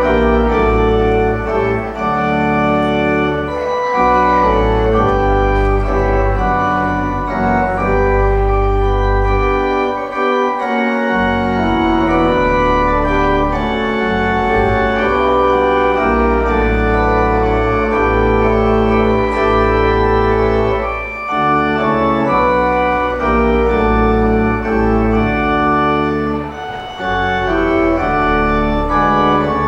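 Organ music: sustained chords that change every second or two over a deep bass line.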